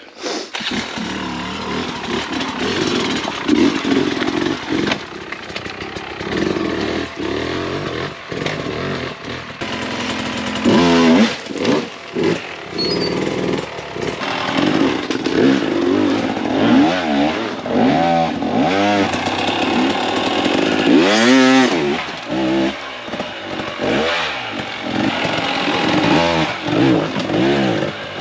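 Dirt bike engines revving hard off-road, the pitch climbing and dropping again and again as the throttle is worked.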